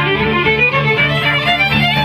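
Small acoustic string ensemble of violins with a double bass playing together. The violins carry a melodic line that climbs in short steps near the start, over a steady low bass part.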